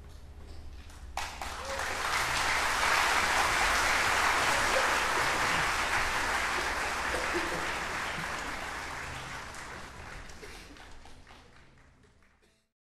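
Audience applauding in a concert hall, breaking out suddenly about a second in as the string orchestra's last low note dies away. The clapping swells, then thins out and fades, and the sound cuts off just before the end.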